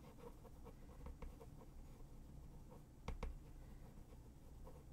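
Faint, quick ticks and taps of a stylus or pen writing, with two louder clicks close together about three seconds in.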